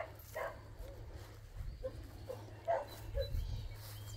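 A dog barking faintly in about six short yips spread across a few seconds, over a steady low rumble.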